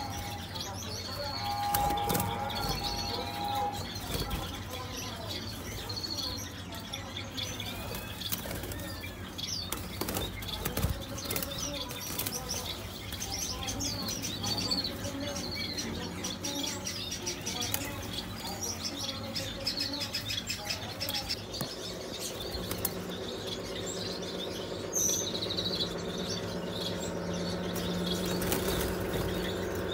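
Small aviary birds chirping with many short high calls and fluttering their wings. A steady low hum with several tones comes in about two-thirds of the way through.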